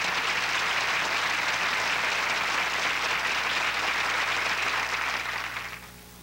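Studio audience applauding, steady and then fading away near the end.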